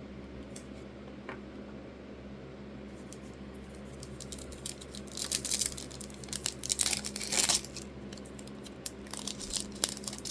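A sports card pack's wrapper being torn open and crinkled, in crackly bursts that start about halfway through after a few quieter seconds.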